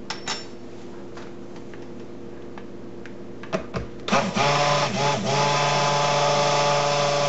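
Handheld stick (immersion) blender switching on about four seconds in and running steadily with a motor hum in a tub of raw cold-process soap batter, blending in pink colorant; it stutters briefly about a second after starting. Before it starts, only a few faint clicks.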